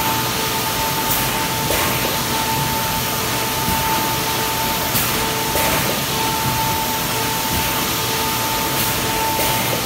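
Production-line machinery noise from a four-head servo sauce-dosing machine and its tray conveyor: a steady hiss with a constant high whine, and brief hissy puffs in pairs every few seconds.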